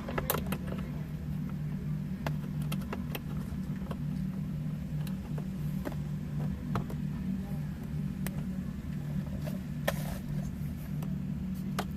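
Honda Accord engine idling steadily, heard from inside the cabin, with scattered light clicks and taps of a screwdriver tightening the instrument cluster's screws.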